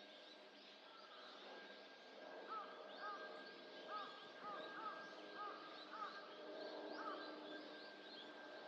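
Outdoor birdsong, faint: a bird gives a series of about eight short, arched call notes over some four seconds, while small birds chirp thinly and high in the background.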